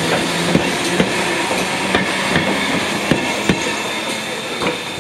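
Oigawa Railway 16000 series electric train (ex-Kintetsu express car) rolling slowly into the station, its wheels knocking over rail joints in an uneven series of sharp clacks over a steady hiss. The clacks stop and the sound drops away near the end as the last car passes.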